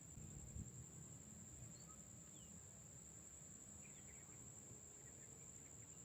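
Faint outdoor ambience: a steady high insect trill, like crickets, with a few faint bird chirps in the middle and a low rumble underneath.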